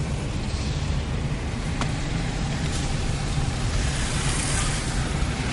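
Car driving, heard from inside the cabin: a steady low engine and road rumble with tyre hiss, and a faint click about two seconds in.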